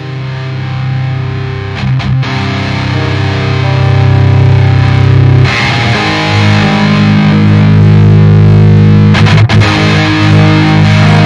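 Outro music: distorted guitar holding sustained chords. It grows louder over the first few seconds and changes chord about halfway through.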